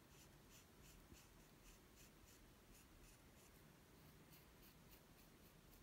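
Faint, rapid scratching of a modelling tool scoring crosshatch lines into the underside of an air-dry clay pumpkin, about four strokes a second. This is the scratch stage of a scratch-and-slip join.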